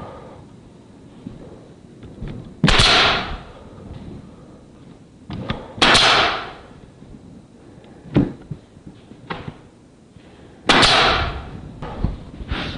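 A pneumatic nail gun firing three times, a few seconds apart. Each shot is a sharp crack followed by a short hiss of exhausting air, with a few lighter clicks and knocks of handling in between.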